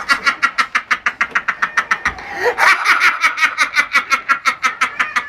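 A man laughing hard: a loud, rapid run of high cackles, about eight a second, with a brief break about two seconds in.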